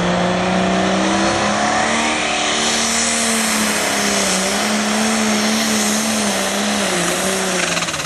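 Super Farm class pulling tractor's engine running flat out under load down the track: a loud, steady high-revving note with a high hiss over it, wavering a little in pitch and dropping near the end.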